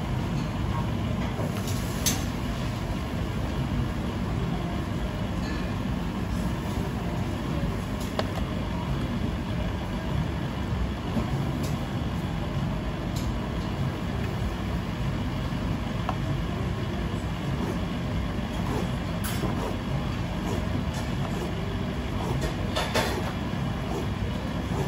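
Steady low mechanical rumble of background machinery in a working kitchen, with a few light clicks and taps scattered through it as food and a knife are handled.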